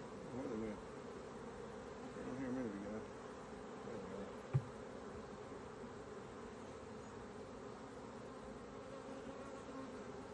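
Honeybees buzzing steadily over an open hive, the hum swelling louder and wavering in pitch twice in the first few seconds. A single sharp knock about four and a half seconds in.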